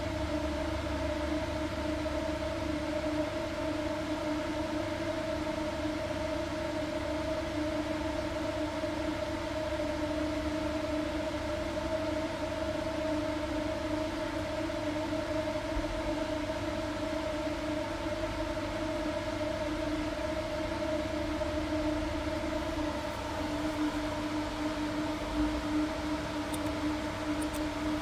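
Factory Five Cobra roadster's engine idling with its electric cooling fans running: a steady low rumble under a held, whining hum of a few steady tones. The lowest tone drops slightly in pitch about three-quarters of the way through.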